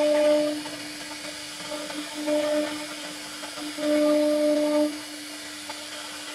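CNC router spindle whining steadily as its bit carves grooves and a rosette pattern into a hardwood board. The whine swells louder three times: at the start, briefly around two seconds in, and for about a second around four seconds in.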